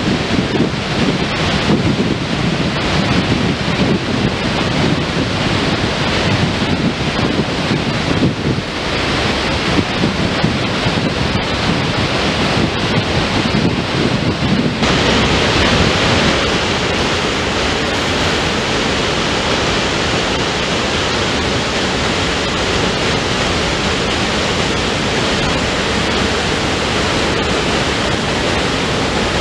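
Continuous rushing roar of floodwater pouring from an open dam spillway into a river in spate, the dam releasing water during a flood. It is rumbling and uneven at first, then changes abruptly about halfway through to a brighter, steadier rush.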